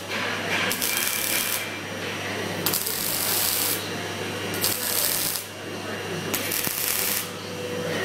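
Robotic MIG welding on sheet steel: the welding arc crackles and hisses in four bursts of about a second each, with short pauses between them as the torch lays one short weld after another. A steady low hum runs underneath.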